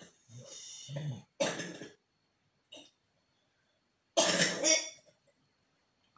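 A man coughing several times and clearing his throat, the loudest coughs coming about four seconds in.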